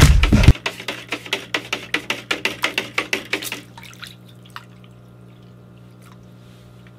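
A drum beat cuts off about half a second in. Then saltwater sloshes and swishes in a plastic bucket as aquarium salt is stirred in with a mixing paddle, in quick, regular strokes that die away a little past halfway. A faint steady hum is left.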